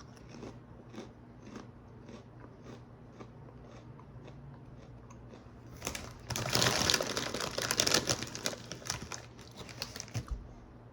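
Dill pickle rice crisps being chewed with faint, regular crunches about twice a second. About six seconds in comes several seconds of loud crinkling, the snack bag being handled.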